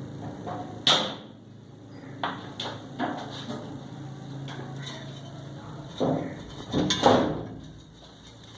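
Hard objects knocking and clinking in a series of sharp, separate hits. The loudest comes about a second in, a few lighter ones follow between two and three seconds, and a cluster of louder ones falls around six to seven seconds in.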